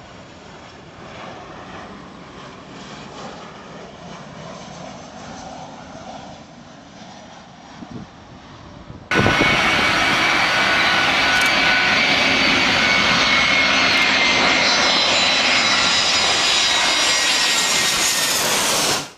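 Twin-engine jet airliner passing low overhead on final approach with its landing gear down. The loud jet noise starts abruptly about nine seconds in and carries high engine whine tones that slowly fall in pitch. Before it there is only quieter wind-like outdoor noise.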